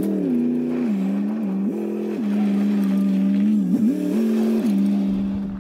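Truck engine running, its pitch stepping up and down several times as the revs change, then cutting off at the very end.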